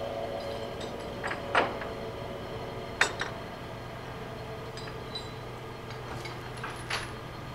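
Sharp metal clinks and clanks of hardware being handled at the trailer carrying the caboose, loudest three times, about one and a half, three and seven seconds in, over a low steady hum.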